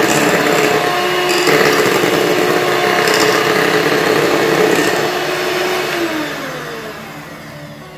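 Electric hand mixer running at a steady pitch, its beaters whipping cream in a bowl. Near the end the motor's pitch falls and the sound fades as it winds down.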